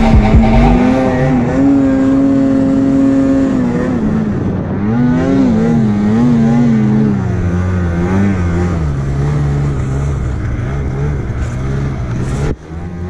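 Snowmobile engine running under load in deep powder, its pitch rising and falling again and again as the throttle is worked. The sound briefly drops away near the end.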